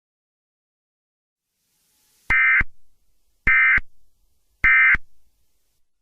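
Emergency Alert System End of Message (EOM) signal: three short, screechy digital data bursts about a second apart, marking the end of the alert.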